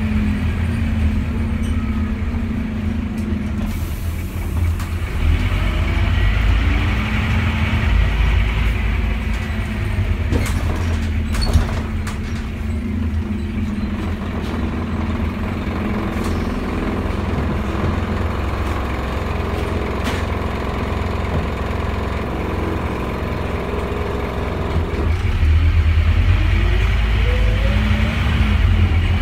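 Scania OmniDecker double-decker bus heard from inside while driving: its diesel engine runs steadily with a low rumble and a few knocks and rattles from the body. Near the end the engine gets louder and rises in pitch as the bus accelerates.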